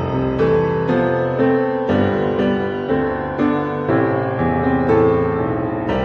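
Background piano music: a gentle melody of notes changing about twice a second over sustained chords.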